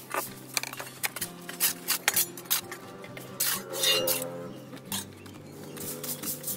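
A broom sweeping and a metal shovel scraping over a dirt-covered brick floor in a series of short, scratchy strokes. There is a longer, louder scrape between about three and a half and four seconds in. Steady background music plays underneath.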